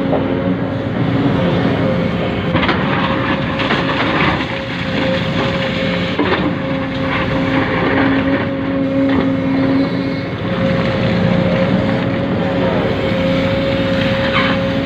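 Radio-controlled model truck and loading machinery running: a constant mechanical whine over a dense rattle, with a few short knocks along the way.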